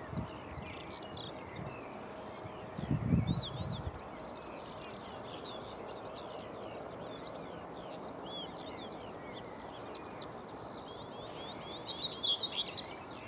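Small birds chirping and singing, with many short calls and a louder, busier flurry near the end, over a steady background hum of airport noise. A brief low rumble comes about three seconds in.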